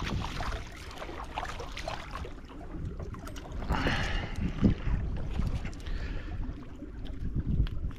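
Small fishing boat moving slowly on the water, with a steady low rumble of wind on the microphone, scattered light knocks, and a short hiss about four seconds in.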